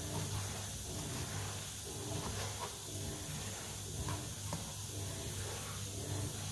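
Knife chopping tomatoes on a plastic cutting board, a few light taps about once a second, over a steady hiss from a pressure cooker of peas and a low hum.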